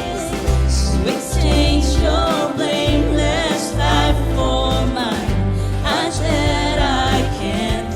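Live worship band playing a contemporary praise song, with voices singing over a bass line that moves to a new note about every second.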